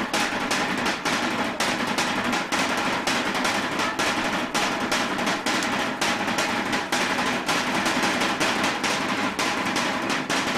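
Drums playing a fast, steady beat of evenly spaced strikes, several a second, the percussion that accompanies a Sinulog dance.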